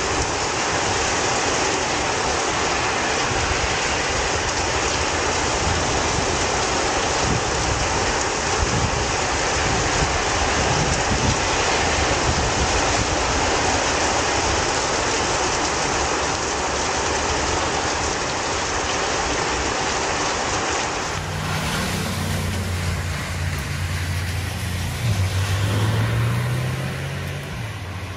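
Heavy rain pouring down, a steady loud hiss. About two-thirds of the way through, it gives way to a car driving on a wet street, its engine hum rising in pitch near the end.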